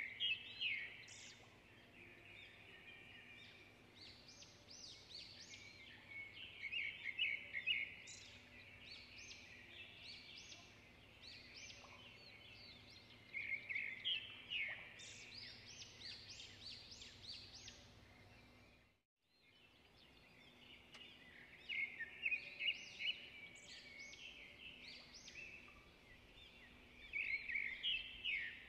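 Birds chirping and singing in quick bursts that recur every six or seven seconds, over a faint steady hum. The sound cuts out completely for a moment about two-thirds of the way through.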